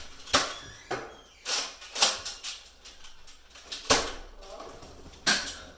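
Nerf blasters firing and foam darts striking in a Nerf war: about half a dozen sharp clacks at uneven intervals, with a gap of about a second and a half in the middle.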